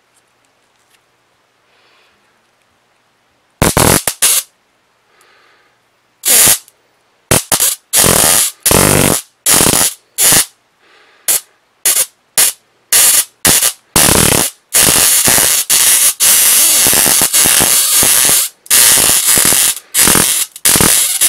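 A 1000 kV high-voltage inverter arcing into a pad of steel wool in loud bursts as it is switched on and off. The bursts start about three and a half seconds in: a few short ones at first, then longer ones of a second or two.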